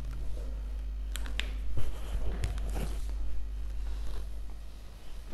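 A few faint clicks and rustles of movement over a steady low hum.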